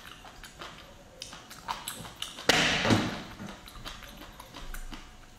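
Fingers tearing apart a sauce-coated braised sea cucumber, making small wet clicks and squelches. A louder wet noise comes about two and a half seconds in and lasts about half a second.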